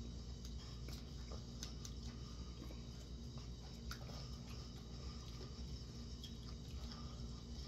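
Faint eating sounds: chewing, and small clicks of plastic forks in a bowl of noodles, scattered irregularly over a steady low hum.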